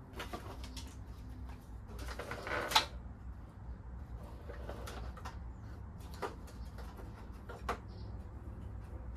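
Plastic rear bumper trim of a Toyota Tacoma being worked loose from the steel hitch reinforcement bar: rustling and scraping, ending in a sharp snap about three seconds in, with a couple of lighter clicks later as the trim shifts and separates.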